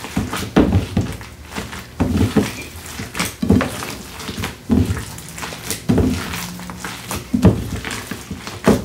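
Hands in nitrile gloves kneading and squeezing raw ground beef mixture in a bowl: irregular wet squishes and soft thuds every half second or so.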